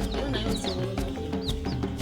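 Background music with a steady beat, with chicks peeping over it in short, high, falling peeps several times.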